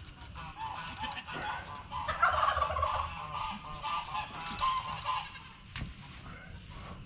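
Loud, repeated honking farm-animal calls, several in a row, loudest a couple of seconds in.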